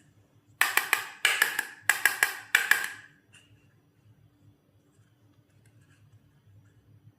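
Four quick bursts of rattling clicks in the first half, like hard plastic toy pieces shaken or clattered together.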